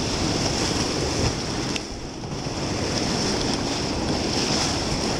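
Steady rush of whitewater from a river in flood around a raft, with wind noise on the microphone.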